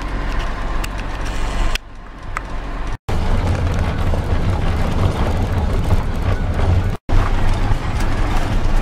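Car running at road speed, heard from inside the cabin: a steady low engine and tyre rumble with road noise. It breaks off abruptly twice where short clips are cut together.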